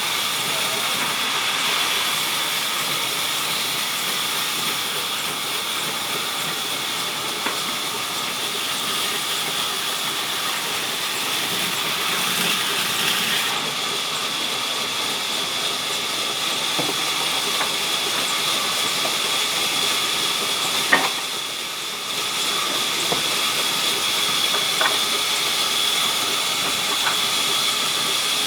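Sawmill saw running, a steady high whine over a hissing rush of noise, with a sharp knock about two-thirds of the way through.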